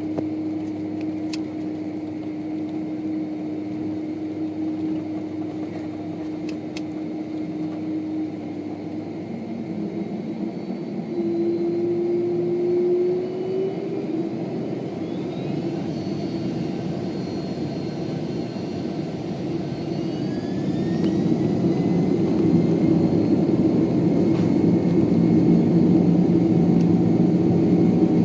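Boeing 767-300 jet engines heard from inside the cabin, running steadily and then spooling up with rising whines about halfway through. The rumble grows louder over the last third as takeoff thrust builds for the takeoff roll.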